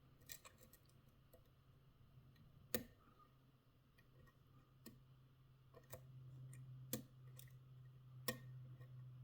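Faint, scattered metal clicks and taps of lock picking tools working in a padlock keyway, the sharpest a little under three seconds in and twice more near the end, over a faint low steady hum.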